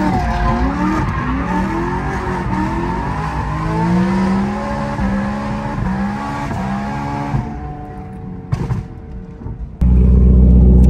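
Supercharged, straight-piped BMW M3 E90 V8 heard inside the cabin, revving up and falling back repeatedly as it is driven hard up a mountain road, then easing off. About ten seconds in this gives way to a louder, steady exhaust idle heard close up at the tailpipe.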